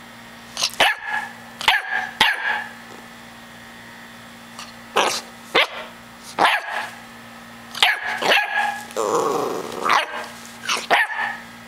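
Chocolate Labrador puppy barking in short, sharp yaps that come in clusters of two or three, with one longer, rougher call about nine seconds in.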